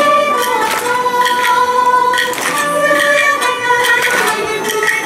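Live Minshingaku (Ming-Qing style Chinese music) ensemble: a female voice sings a slow, held melody over plucked moon lutes. Sharp percussion strikes come every second or so.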